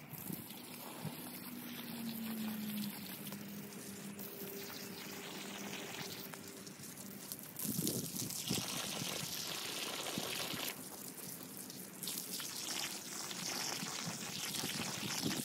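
Water from a garden hose splashing onto leaves and soil, a steady hiss that grows louder and brighter about halfway through.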